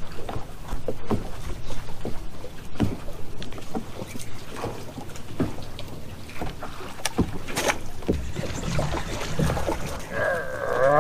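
Water lapping against a bass boat's hull and wind on the microphone, with scattered sharp clicks and knocks from the deck and fishing gear. A short pitched sound comes about ten seconds in.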